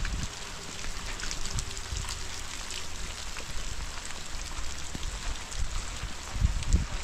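Steady rain falling, with many small drop ticks through a continuous hiss. Low gusts of wind come in near the end.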